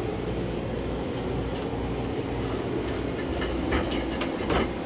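Steady low machinery rumble inside a mobile command truck, with a few short sharp knocks in the second half.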